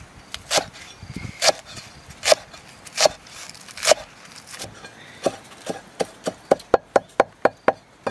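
Blade chopping on a wooden board: five heavy, evenly spaced strokes, then a quicker run of about ten lighter strokes that speeds up.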